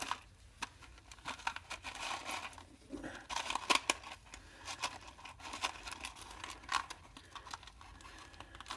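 Irregular light clicks, scrapes and rustles of hands handling a printed circuit board and small parts.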